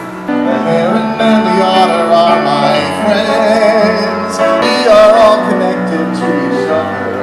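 Background music: a song with a sung melody over instruments, getting louder shortly after it begins.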